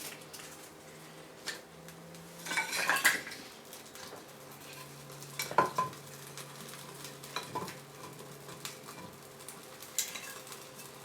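Newly lit birch-bark and kindling fire catching in a grill: scattered crackles and pops, with a denser burst of crackling clatter about three seconds in.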